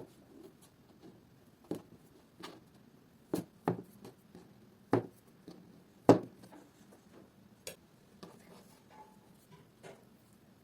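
Handling noises from kitchen work: about a dozen irregular taps and knocks, like utensils and dishes being set down or tapped, the loudest a little past the middle.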